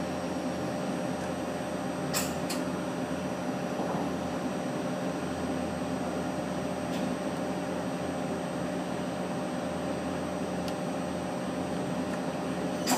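Hitachi Seiki HT-25D CNC lathe humming steadily while powered up, its spindle and chuck stopped. There is a light click about two seconds in and a sharper, louder click at the very end.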